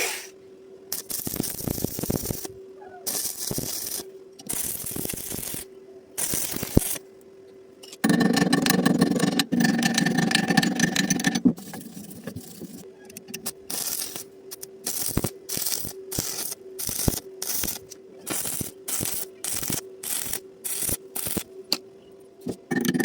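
Stick-welding arc crackling in stop-start bursts as the arc is struck and broken, with one longer continuous run in the middle, then short bursts about two a second. A steady faint hum runs underneath.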